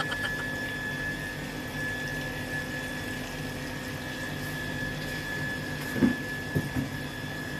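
Chicken pieces deep-frying in hot oil in a nonstick pan, a steady sizzle over a faint steady high tone. A couple of soft knocks come about six seconds in as metal tongs turn the pieces.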